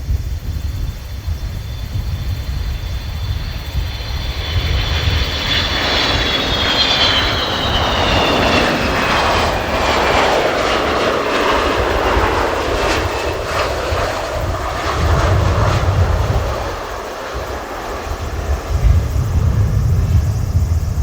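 KC-135R Stratotanker's jet engines going past on its landing approach. A high whine falls in pitch as it passes, followed by the loud, broad rush of the engines.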